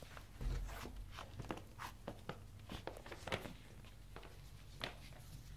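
Poodle puppies moving about on a concrete floor: scattered small clicks and scuffs of paws and claws, with a louder bump about half a second in, over a steady low hum.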